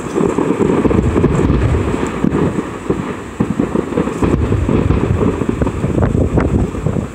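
Fireworks display heard as a continuous loud rumble, many shell bursts running together with crackling.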